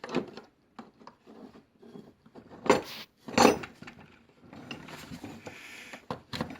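Scattered clicks and knocks of a carpet cleaner's power cord and plug being handled and pushed into a power strip, with two louder knocks a little under a second apart about three seconds in.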